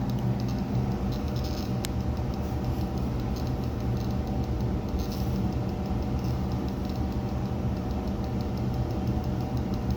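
Steady low electrical hum, a drone made of several even low tones, with faint ticking above it. The man filming takes it for a targeted "microwave attack".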